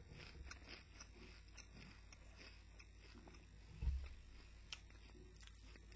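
Faint crunching of Doritos tortilla chips being chewed, in scattered small clicks, with one dull low thump about four seconds in.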